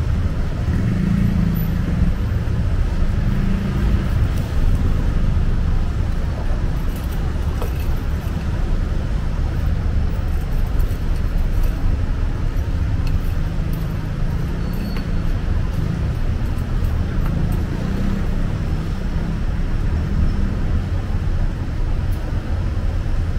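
Busy street traffic: a steady low rumble of passing cars and engines, with engine hums that rise and fade as vehicles go by.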